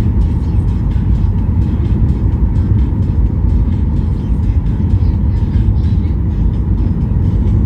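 Steady loud rumble of a Ryanair Boeing 737 heard from inside the passenger cabin during landing, with a faint steady whine above it.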